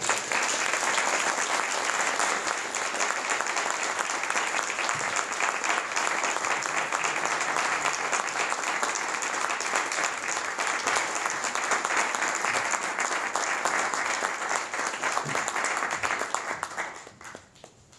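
Audience applauding steadily for a long stretch, dying away near the end.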